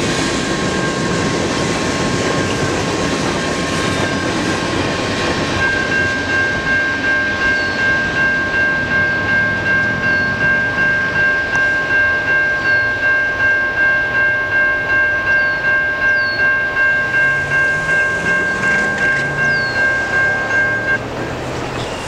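Freight train's covered hopper cars rolling away along the rails, the rumble fading, while an electronic grade-crossing bell rings about twice a second and cuts off near the end. A few small bird chirps.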